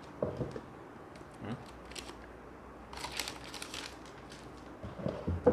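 A cardboard box and its packaging being opened and handled: scattered clicks and rustling, busier about three seconds in, with a sharper knock near the end.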